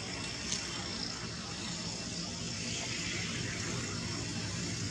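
Steady low hum of a distant engine under outdoor background noise, with one short faint click about half a second in.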